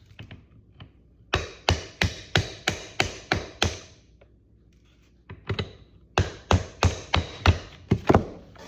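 Hammer tapping on a small socket used as a drift to drive a king pin into a 1954 Chevrolet Bel Air's front steering knuckle: sharp metal-on-metal taps, about three a second, in two runs with a pause of about a second and a half between them.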